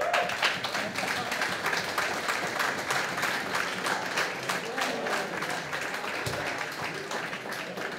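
Audience clapping: dense, steady applause that fades out toward the end.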